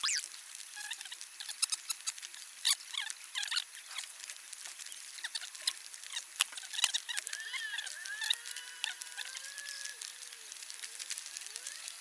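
Raindrops pattering and dripping in irregular ticks, with a run of short wavering squeaks from about seven to eleven seconds in.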